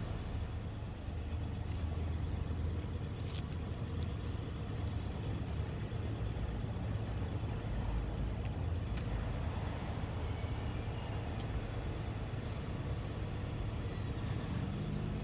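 Steady low rumble of motor vehicles, with a few faint clicks scattered through.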